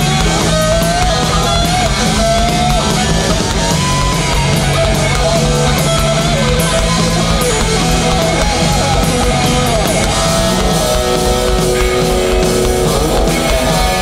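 Live crossover thrash band playing loud and full: distorted electric guitars, bass and drum kit, with a higher line bending up and down in pitch over the first few seconds.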